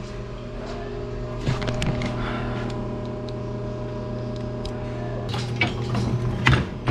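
A steady motor hum with metal knocks and clanks from the cattle trimming chute: a couple about one and a half seconds in, then a louder cluster near the end.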